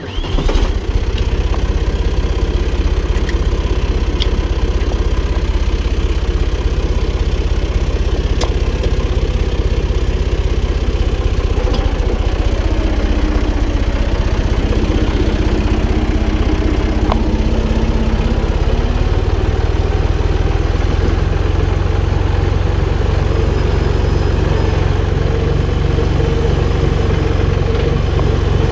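Valtra BF-75 tractor's diesel engine running steadily, loud and close, with a few light clicks or rattles over it. It comes in suddenly at the start.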